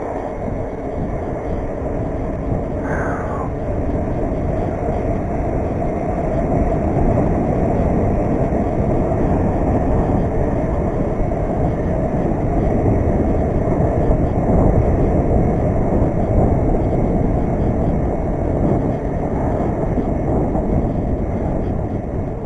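Wind and road noise from a bicycle ride, picked up by a handlebar-mounted GoPro in its waterproof case: a steady low rumble of wind on the case and tyres rolling on asphalt.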